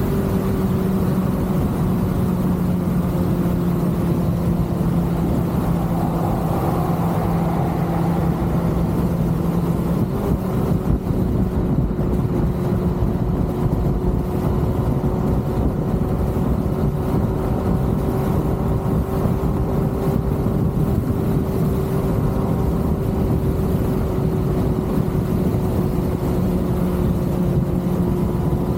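Kawasaki ZX-6R's inline-four engine running at a steady cruise, its note holding almost level in pitch, over a low rush of wind noise.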